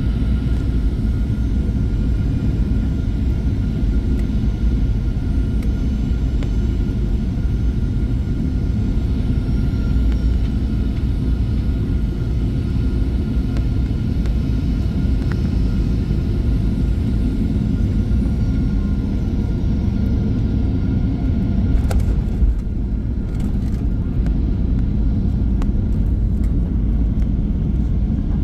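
Steady low rumble of a Boeing 737-800 heard inside the cabin, with one short click about 22 seconds in.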